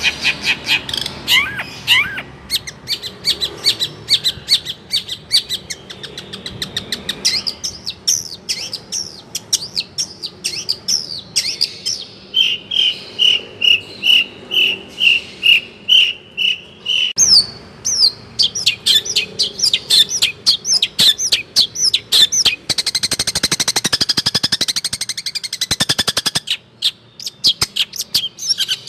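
Long-tailed shrike (cendet) singing a fast, varied song of short chirps. About midway it gives a run of even repeated notes, and later a rapid rattling trill.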